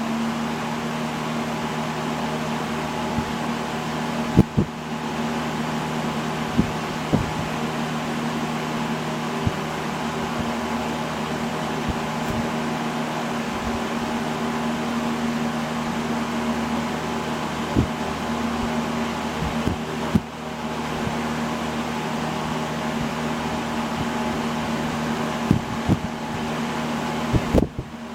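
1970s Sears Kenmore 14-inch box fan (model 753.80872) running steadily: a rush of moving air over a steady electric motor hum. A few light clicks come through here and there.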